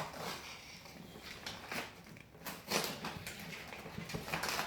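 Faint, intermittent rustling and crinkling of toy packaging being handled and unwrapped.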